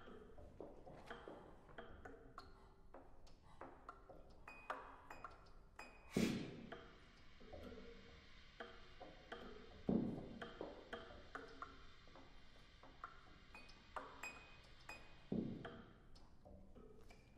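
Quiet, sparse contemporary chamber-ensemble music: scattered short plucked and struck notes, with three louder struck notes that ring on, about six, ten and fifteen seconds in.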